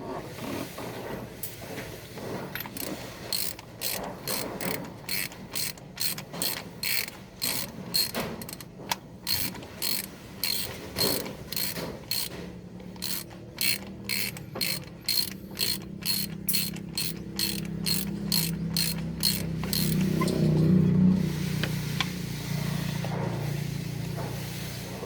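Hand socket ratchet clicking in quick strokes, about two a second, as bolts are turned. Near the end a low hum swells and fades.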